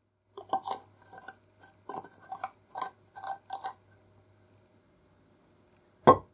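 Restored antique metal oil can being handled: a quick string of light metallic clicks and clinks, then one loud knock near the end.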